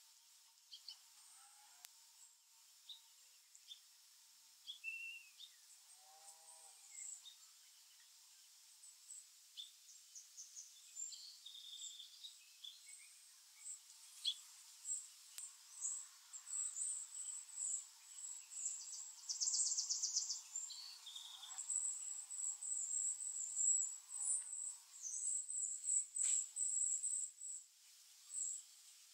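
Black-capped chickadees calling: scattered thin, high-pitched chirps that become a busy, near-continuous twittering from about the middle on, with a few sharp clicks among them.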